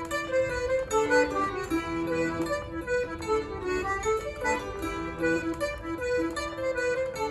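Celtic harp and a squeezebox playing a reel together, with plucked harp notes under the squeezebox's reedy tune at a brisk, even pace.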